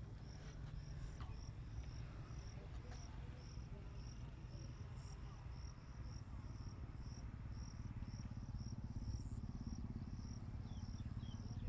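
Insects chirping in the background, a steady run of short high chirps about two a second with longer high trills above, over a low steady rumble.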